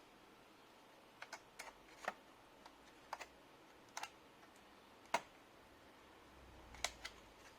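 Sharp, irregularly spaced clicks and taps of plastic laptop parts and tools being handled during disassembly, about a dozen in all, the loudest a little after five seconds in.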